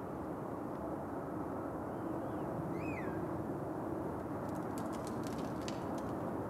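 Steady low background rumble. Over it a bird calls about two seconds in: two faint arched notes, then a louder falling note. A short run of faint high ticks follows near the end.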